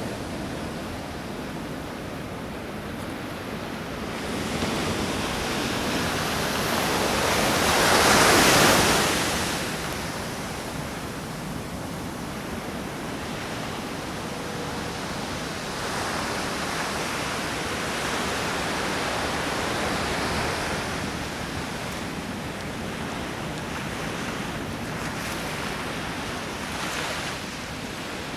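Pacific Ocean surf washing onto the shore: a steady rush of water with a wave swelling loudest about a third of the way in, then further, weaker swells.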